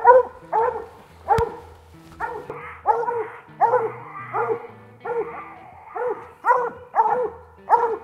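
Walker coonhound barking treed at the base of a tree, repeated short barks about two a second. This is the call that tells hunters the hound has a raccoon up that tree.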